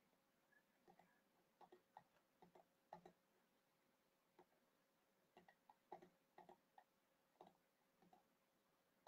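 Faint, irregular computer mouse clicks, some in quick pairs, against near silence.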